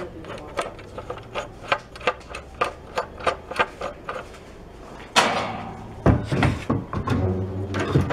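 Wooden rip-fence jig being handled on a table saw: a steady run of light clicks, about three a second, then a sharp wooden knock about five seconds in, followed by a few seconds of wood knocking and scraping.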